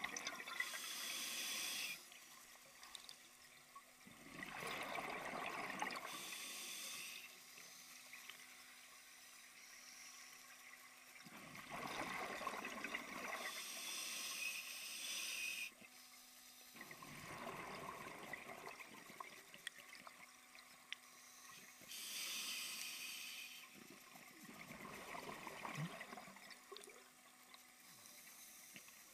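Scuba diver breathing through a regulator underwater: about four slow breaths, each a high hiss on the inhale and a bubbly rush of exhaled air. A faint steady hum sounds between the breaths.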